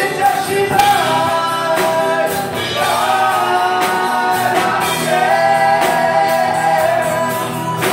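Live rock band playing: several men singing loudly together in long held notes over electric bass, acoustic guitar and a drum kit with regular cymbal hits.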